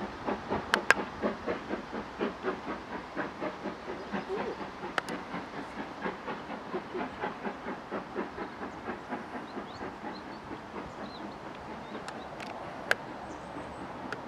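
Steam locomotive working a goods train, its exhaust beats coming about four to five a second and growing fainter as it pulls away. A few sharp clanks cut through, the loudest about a second in and one near the end.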